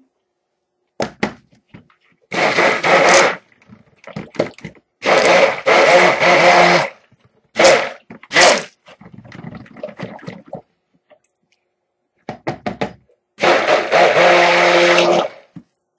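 Handheld electric mixer run in about five short bursts, the longest near the end, blending titanium dioxide into cold process soap batter, with a few knocks in between.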